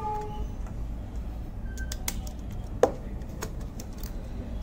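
Small clicks and taps of plastic and metal as a phone's motherboard is pried out of its frame with a tool, with one sharper click a little before three seconds in, over a steady low hum.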